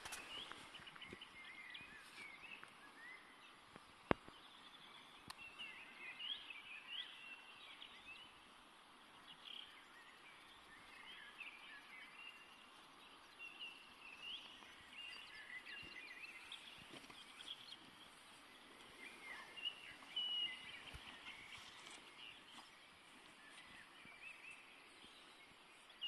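Faint, scattered bird chirps and twitters, short calls repeating over a low steady hiss, with a single sharp click about four seconds in.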